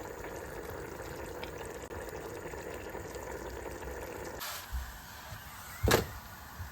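Steady rush of pouring rainwater, a little quieter from about four and a half seconds in, with one short sharp knock near the end.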